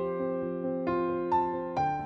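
Slow, gentle piano music: single notes struck over sustained chords, each fading as the next comes in.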